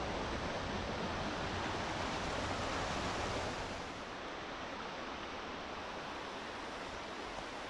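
Steady rush of flowing water, a little softer after about four seconds.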